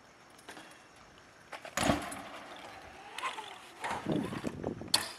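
BMX bike coming down onto a skatepark ramp with a hard hit about two seconds in, then its tyres rolling and rattling over the ramp and concrete, with a sharp clack near the end.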